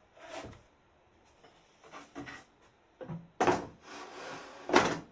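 Wood scraping and rubbing in a few short strokes, the two loudest near the end with a softer steady scrape between them.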